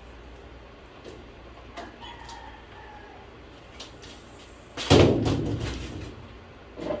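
Scissors snipping a few times while a gift is wrapped. About five seconds in comes a loud, sudden sound that fades away over about a second and a half.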